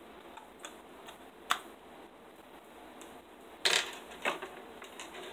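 Sharp clicks and knocks of a USB cord being plugged into a NeurOptimal Z amp box as the cables are handled. There is one click about a second and a half in, then the loudest knock near the end and a smaller one just after.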